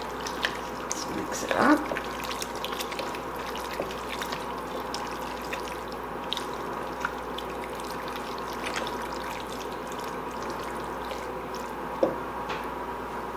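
A spatula stirring a thick, wet mix of pasta, sausage and sauce in a cooking pot: soft wet squelching with many small taps and scrapes against the pot, over a steady background hum.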